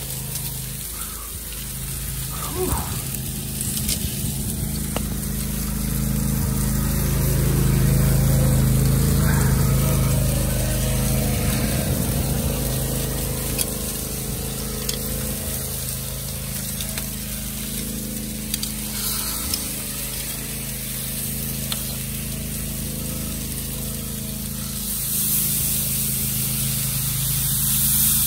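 Meat sizzling on a large charcoal grill, with a spray bottle hissing near the end as it mists the meat with an apple cider vinegar and water mixture.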